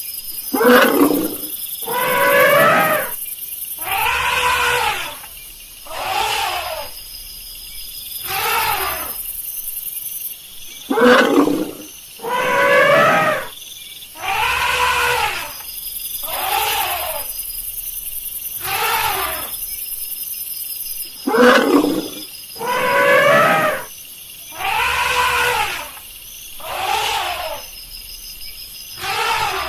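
An elephant calling over and over, about one call every two seconds. Each call is a loud pitched blare that rises and then falls.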